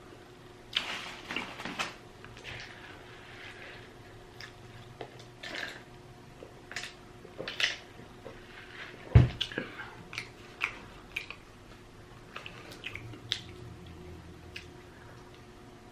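Close-up chewing and lip-smacking: a string of short, wet mouth clicks and smacks, uneven in timing, with one louder dull thump about nine seconds in.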